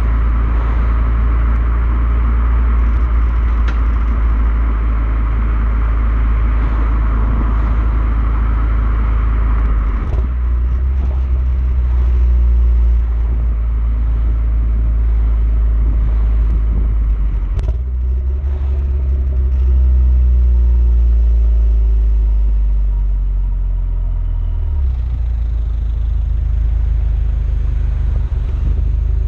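Renault Mégane R26's 2.0-litre turbocharged four-cylinder engine running on the move through its standard exhaust, with a sharp knock about ten seconds in and another near eighteen seconds. After the second knock the engine note falls steadily for several seconds as the revs drop, then settles. The car has an intermittent 'cough' that the owner suspects is a misfire or injector fault.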